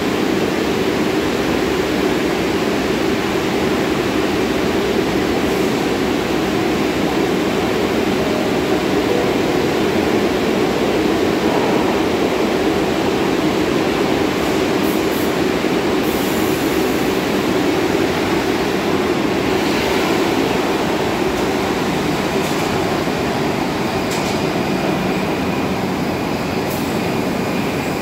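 R62A subway train on the 1 line pulling out of an underground station: a steady loud rumble of wheels and traction motors that eases off slightly near the end.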